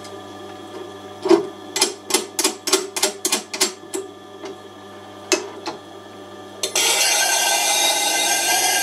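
A run of sharp metal clicks and knocks as the sharpening machine's support bar is set higher and the cleaver in its jig is repositioned. Then, nearly seven seconds in, a sudden steady grinding hiss with a faint ringing as the cleaver's steel edge is laid on the turning wheel for a test pass.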